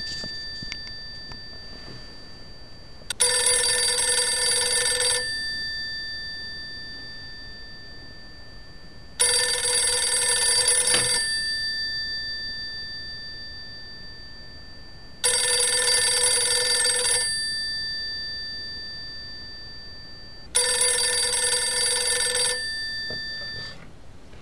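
A rotary-dial telephone's bell rings four times. Each ring lasts about two seconds, with five to six seconds between them, and the bell hums on and fades after each ring. Near the end the hum cuts off as the handset is lifted.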